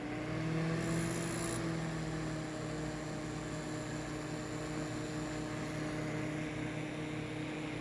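Panasonic NN-ST652W microwave oven running with a freshly replaced magnetron: a steady hum, a tone rising in pitch in the first second as it gets going, then holding even. The harsh noise of the failed magnetron is gone, a sign the fault is cured.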